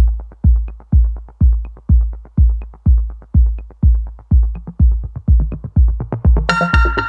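Music: a deep drum beating steadily about twice a second with lighter ticks between the strokes, joined near the end by a bright, high sustained melody instrument entering sharply.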